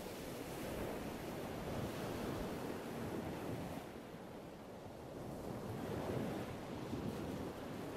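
Ocean surf: waves washing in and out, the noise swelling and easing every few seconds.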